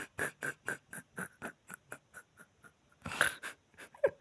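A person laughing breathily under their breath: a run of short huffing pulses about four a second that fade, then a louder burst of laughter about three seconds in.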